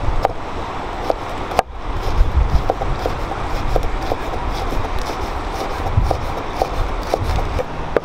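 Kitchen knife slicing chili peppers on a wooden cutting board: irregular sharp taps of the blade striking the board, several a second at times, over a steady low rumble of wind on the microphone.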